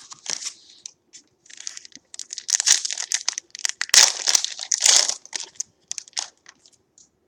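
Plastic-foil wrapper of a trading-card pack crinkling and tearing as it is opened by hand, a rapid run of crackles, loudest and busiest in the middle.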